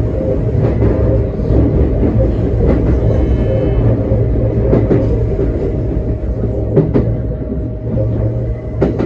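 Electric commuter train running on rails, heard from inside the front car: a steady low rumble with a constant hum over it and a sharp click about every two seconds.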